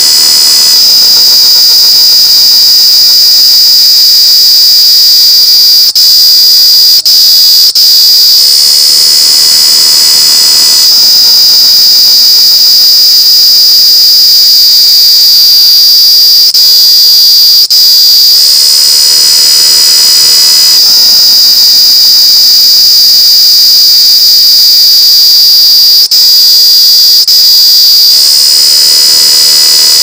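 Cicada singing: a loud, continuous high-pitched buzz that swells into a brighter, harsher phase about every ten seconds, with a few brief breaks. This is a male's calling song, made to attract females.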